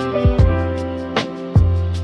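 Lo-fi hip-hop instrumental: warm, sustained jazz chords over a soft drum beat, with a deep kick drum about half a second in and again near the end.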